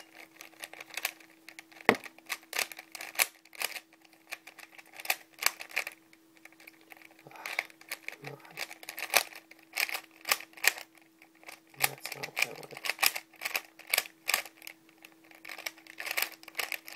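Plastic layers of a homemade 3x4x5 cuboid twisty puzzle clicking and clacking in quick, irregular runs as it is turned during a solve, with short pauses between bursts of turns. A faint steady hum sits underneath.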